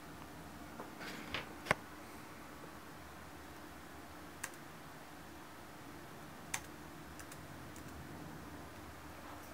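Computer keyboard keystrokes: a quick run of three clicks about a second and a half in, then single, well-spaced key clicks, over a faint steady hum.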